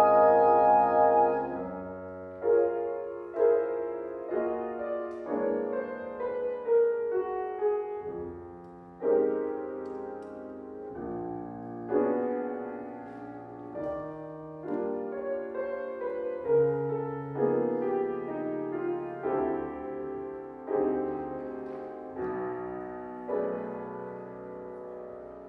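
Big band rehearsing a slow jazz ballad. A loud held chord from the band fades about two seconds in, and a solo piano carries on with slow chords, each struck and left to ring out.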